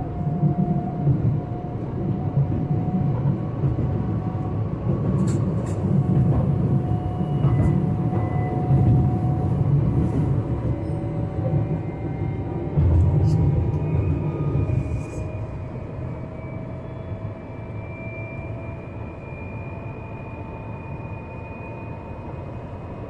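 Solaris Tramino tram running: a steady low rail rumble with the thin whine of its electric drive. A few sharp clicks and knocks come about 5 and 13 seconds in. After about 15 seconds the rumble grows quieter and the whine slowly rises in pitch.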